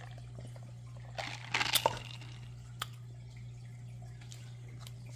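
A person drinking tea: a short run of sipping and swallowing sounds about a second in, with a click shortly after, over a steady low hum.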